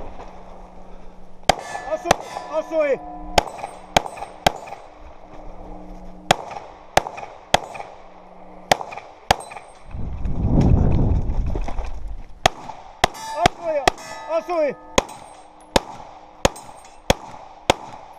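Handgun shots fired in quick strings of two or more, about two dozen in all, with ringing metallic tones after some of them. There is a pause with a low rushing noise about ten seconds in.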